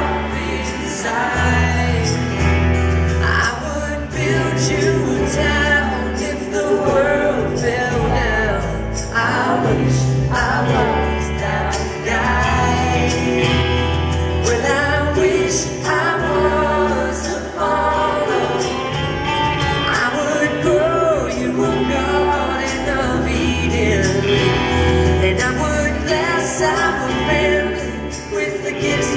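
Live band music: acoustic guitar and bass guitar playing, with a man singing.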